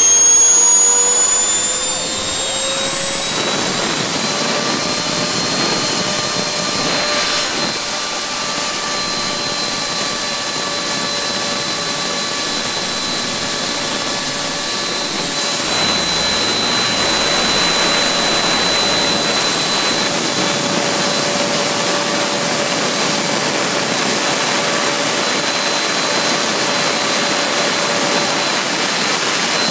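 GR180 model turbojet engine running on diesel fuel, its high whine rising over the first few seconds as it spools up through the fuel-ramp stage, then holding steady as it settles into normal running, over a steady rush of exhaust.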